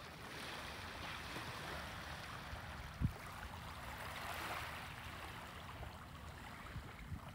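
A steady rush of moving water, with one low thump about three seconds in.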